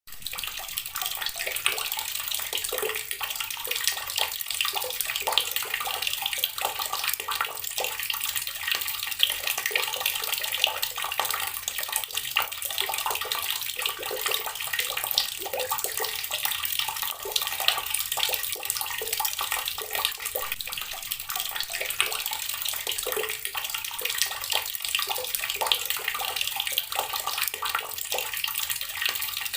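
Water running steadily from a tap and splashing into water below, with a continuous hiss and small irregular splashes.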